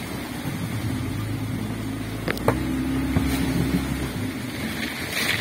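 Small speedboat's motor running at low speed, growing a little stronger about halfway and easing off near the end, with two sharp ticks about halfway through.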